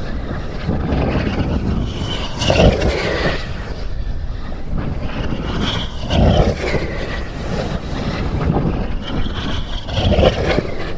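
Strong wind buffeting the microphone, with a rushing swell three times, about every four seconds, fitting a dynamic-soaring glider whooshing past on each lap.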